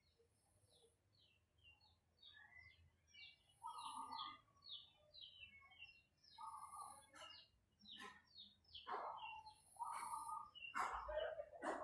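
Birds chirping: a quick series of short, high, falling chirps, with louder, lower calls joining in from about four seconds in.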